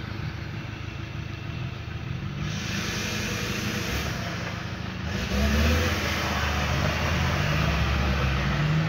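A 4x4 truck's engine revving under load as it climbs a muddy trail. The engine gets louder about five seconds in, its pitch rising and falling with the throttle.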